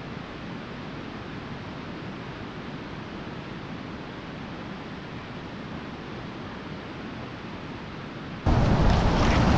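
Steady rush of moving river water. Near the end it switches abruptly to a much louder, dense roar of a waterfall close by.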